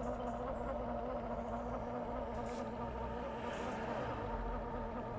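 Battery-powered oil extractor pump running with a steady hum, sucking engine oil up through the dipstick tube into a bottle while the oil flows freely.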